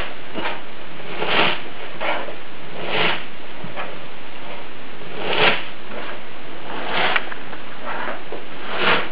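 Hands squeezing and kneading finely shredded cabbage with salt on a wooden board, a rustling crunch with each squeeze roughly every second or two, over a steady hiss. The cabbage is being pressed with salt so that it releases its juice.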